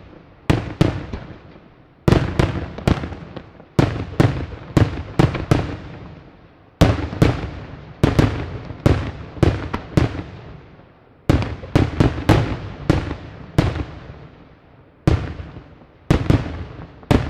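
Daytime aerial fireworks shells bursting overhead, dozens of sharp bangs in quick irregular clusters, each trailing off in an echo.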